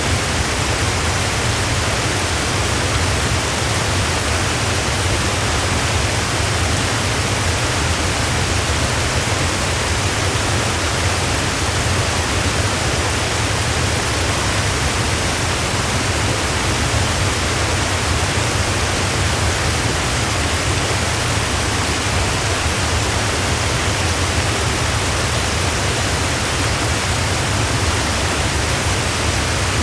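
Waterfall rushing: a steady, unbroken roar of falling water with a deep low rumble under it and no changes.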